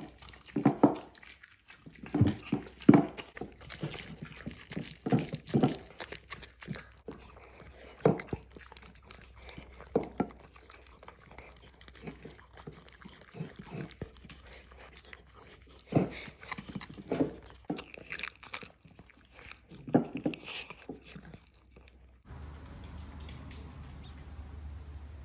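Mini dachshunds eating a raw meal of ground quail: irregular wet chewing with sharp clicks and knocks. About 22 seconds in this stops and a steady low hum takes over.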